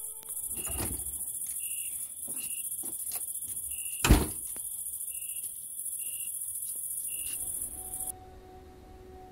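Crickets chirping in a steady high-pitched chorus, with scattered knocks and one loud thump about four seconds in. The chorus cuts off suddenly about eight seconds in.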